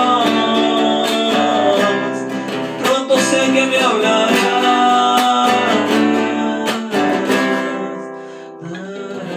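Acoustic guitar strummed in the instrumental close of a song. The playing fades about eight seconds in, then new chords start just before the end.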